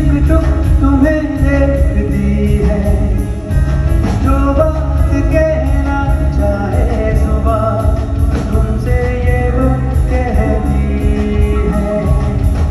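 A man singing live into a handheld microphone, backed by a live band with drums and keyboards, amplified through a concert sound system.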